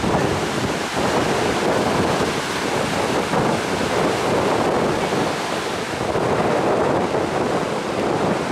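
Steady rushing noise of sea surf mixed with wind buffeting the microphone.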